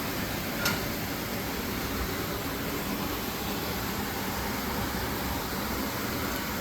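Steady fan-like background hiss with no speech, and one short click about two-thirds of a second in.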